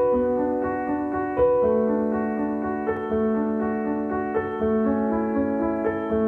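Background piano music: a steady run of notes over held lower notes.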